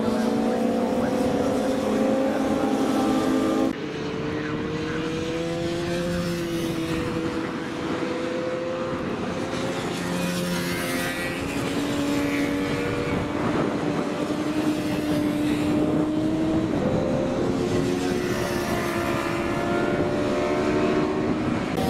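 Engines of 400cc production racing motorcycles running at high revs through corners, their pitch rising and falling as they accelerate and pass. About four seconds in, the sound cuts abruptly to a somewhat quieter group of bikes.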